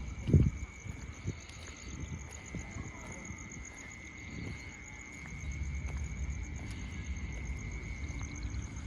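Insects trilling steadily outdoors: a constant high whine with a faster, pulsing trill above it. A short low thump comes about half a second in, and a low rumble sets in about halfway through.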